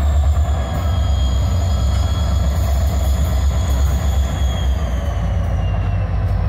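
Norfolk Southern six-axle diesel locomotives rolling slowly past at close range: a loud, steady low engine rumble with a high whine that slowly falls in pitch.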